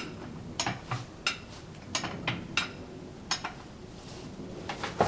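A run of sharp, irregular metallic clicks and clinks, about a dozen, some close together and some a second or so apart, from metal gear being worked while a heavy oak log is moved onto a sawmill.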